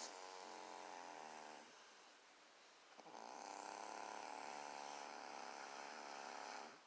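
Snoring: two long, drawn-out snores with a steady buzzing pitch, the first lasting about a second and a half and the second, starting about three seconds in, lasting nearly four seconds.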